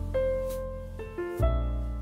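Soft background music: keyboard melody notes over low sustained bass chords, with the harmony changing about every half second to second.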